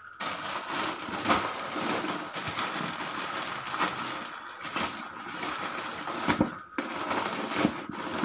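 Plastic grocery packets crinkling and rustling as they are handled and unpacked, with a brief break about six seconds in.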